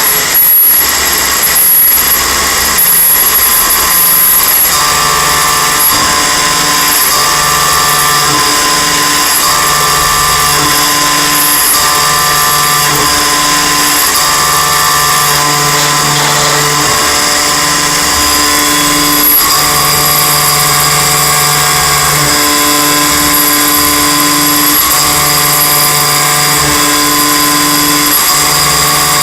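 Milling machine high-feed milling steel: a steady high-pitched spindle and cutting noise, with a lower hum that comes and goes every second or two as the cutter moves through its passes.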